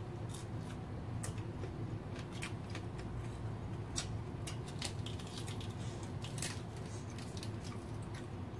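Close-up eating sounds: a string of short wet smacks, clicks and crisp crackles from chewing, fingers working rice and a fresh lettuce leaf being torn and folded by hand. A steady low hum runs underneath.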